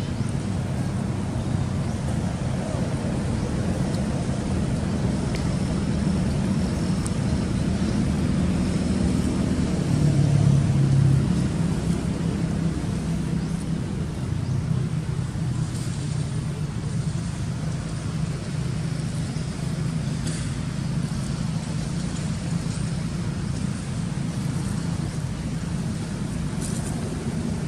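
Steady low motor rumble, swelling briefly about ten seconds in.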